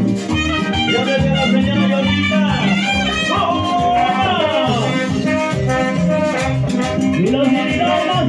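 Live Latin dance band playing, with saxophone and trombone over bass, drums and percussion, in a steady dance rhythm.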